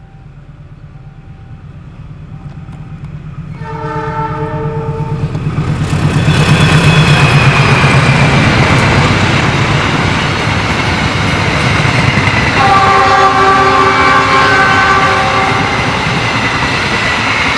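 An express passenger train behind a diesel locomotive approaches, its engine hum building. The locomotive's horn sounds once for under two seconds, then the train runs past loudly, the wheels of the coaches rumbling and clattering on the rail joints with a faint high whine. About thirteen seconds in, a second horn blast sounds, lower in pitch and lasting a little longer.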